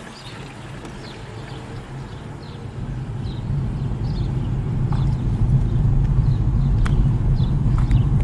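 Car running in the cabin, its low engine and road rumble growing steadily louder as it moves off along the street. Over it a bird repeats a short high falling chirp about once a second, and there is a single sharp click about seven seconds in.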